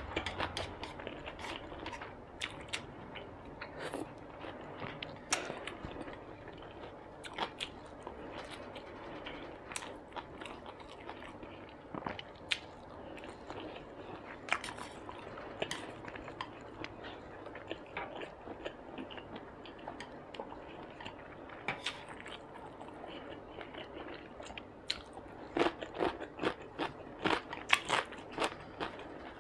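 A person chewing mouthfuls of rice and soft grilled Chinese sausage, with small wet mouth clicks. In the last few seconds a quicker run of sharper clicks and crunches.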